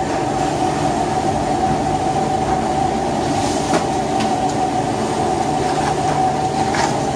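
Rice grains toasting in oil in a very large steel pan, sizzling and rustling as they are stirred with a big spoon, over a steady hum with a constant tone.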